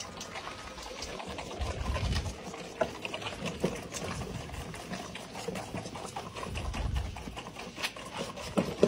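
Goat kids suckling milk from bottles in a feeding rack: wet sucking and slurping with small clicks and knocks as they jostle and are handled, and a low rumble of handling twice.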